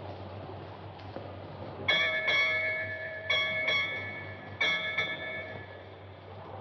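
A ship's bell struck six times in three pairs of quick double strokes, each stroke ringing on. On a ship, six strokes struck in pairs signal six bells in the watch.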